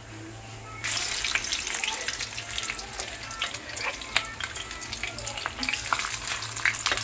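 Tuna and potato kabab patties frying in hot oil in a pan, a dense sizzle full of small crackles and pops as more patties are laid into the oil. The sizzle jumps suddenly louder about a second in.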